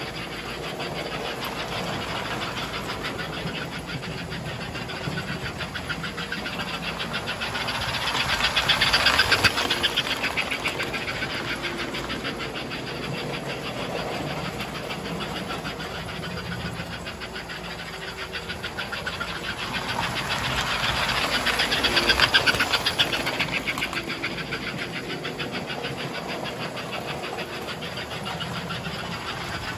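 American Flyer model train running around the layout: a steady motor hum with rapid clicking of the wheels over the track, swelling louder twice as the train passes close by and fading as it moves away.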